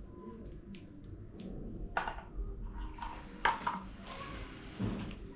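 Small clicks and taps of hard plastic and cardboard as a phone's box and accessories are handled and unpacked, a few louder taps about two and three and a half seconds in.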